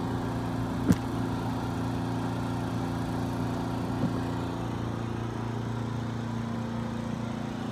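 An engine running steadily at idle, with a single short click about a second in.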